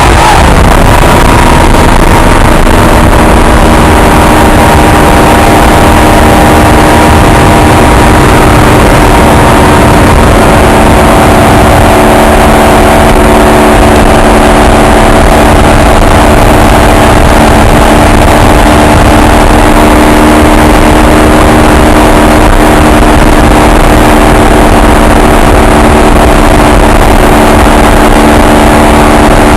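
Modified Honda VF750 V4 motorcycle engine running at steady revs while cruising, a constant drone with little change in pitch, under a loud rush of wind and road noise.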